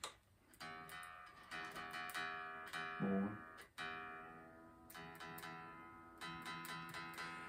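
Unplugged Epiphone Les Paul Modern solid-body electric guitar being tuned: strings plucked again and again while a tuning peg is turned. Each note rings quietly and dies away.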